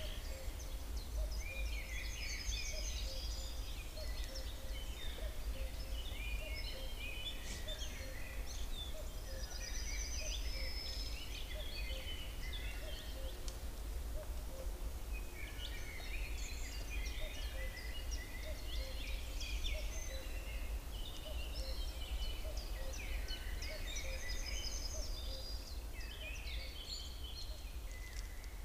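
Several songbirds singing and calling over one another, with chirps and a fast trill, thinning out briefly in the middle, over a steady low rumble.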